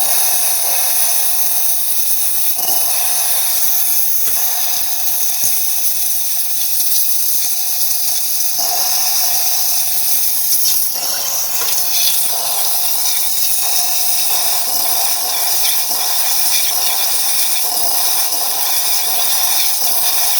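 Rancilio Silvia espresso machine's steam wand venting a strong, steady jet of steam with a loud hiss.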